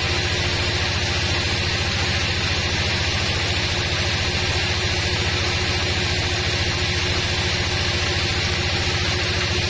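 Sawmill band saw sawing a teak log, running steadily with a hiss over the fast, even low throb of a diesel engine.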